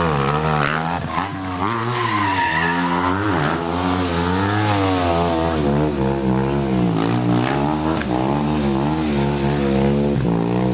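Stunt motorcycle engine revving up and down over and over as the rider works the throttle through tricks, with a tyre squeal about two to three seconds in.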